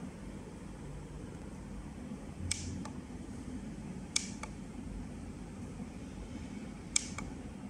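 Three sharp double clicks, the first about two and a half seconds in and the last near the end, over a steady low hum: the vein finder's buttons being pressed to switch its projected light colour.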